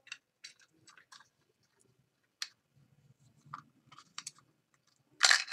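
Small sharp clicks and scrapes of a tape-wrapped metal hook prying at the plastic i7 TWS charging case as the circuit board is pulled out, with a louder rasping scrape near the end.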